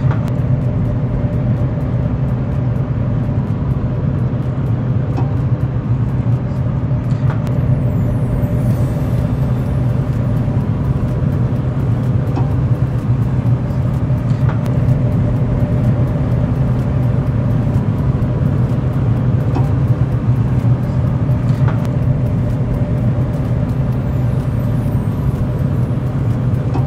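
Steady hum of a running Pit Boss pellet grill, its fan going while the smoker holds temperature, with a few faint clicks as eggs are set down on the grates.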